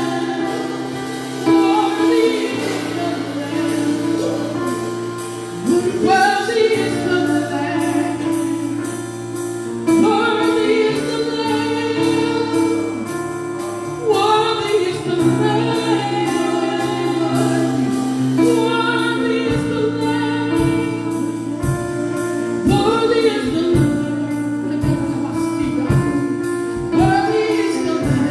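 Gospel worship music: voices sing drawn-out phrases over long held chords. A soft, regular beat joins about two-thirds of the way through.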